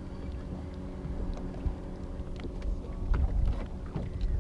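Wind rumbling on the camera microphone over a steady low hum, with scattered light clicks and knocks.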